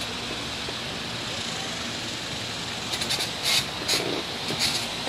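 Steady hiss throughout. From about three seconds in, a run of short high-pitched squeaks from a wheelchair that needs oil.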